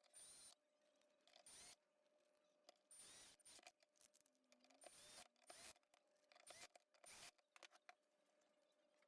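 Near silence with faint, scattered clicks and rubs of small parts being handled, the sound of an e-bike controller's case being put back together and its screws started.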